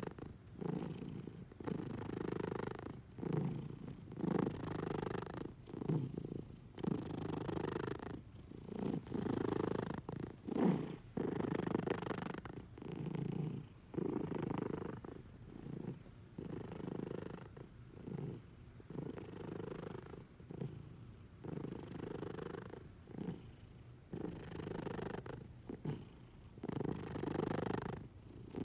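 Black-and-white domestic cat purring loudly close to the microphone, the purr swelling and fading with each breath in and out.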